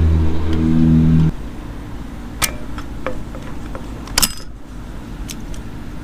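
A steady low droning hum cuts off suddenly a little over a second in. After it come a few light metallic clicks and clinks from a snap ring being worked off a motorcycle's clutch-cable cover with pliers.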